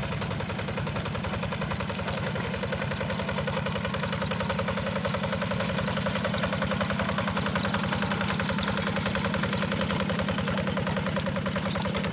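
Yanmar diesel engine of a hand tractor running steadily with a rapid, even beat, getting slightly louder over the first few seconds.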